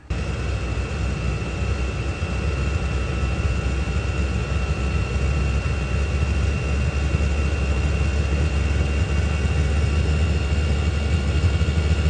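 Chinese diesel air heater running at a high fan setting, a steady low hum with a thin whine above it, as it draws more fuel.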